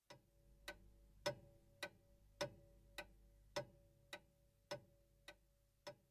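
Clock ticking slowly and evenly, a little under two ticks a second, each tick with a brief ring. The ticks are quiet and grow fainter near the end.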